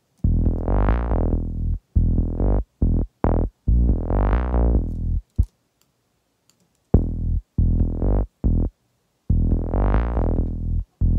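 Synth bass line playing back, its filter cutoff opening and closing so that the longer notes grow brighter and then darker, between short clipped notes. There is a silent gap of about a second and a half midway. It runs through Logic's Multipressor, whose 1–2 kHz band compresses only when the higher notes sound.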